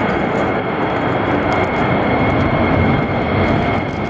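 Military fighter jet climbing away after takeoff, its jet engine noise loud and steady, with a thin high whine over the rumble.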